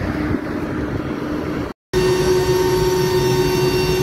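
Steady aircraft engine drone on the apron next to a C-130J Hercules, with a constant low hum. After a cut about two seconds in, a louder steady engine drone with a strong hum and a high whine inside the Hercules' cargo cabin.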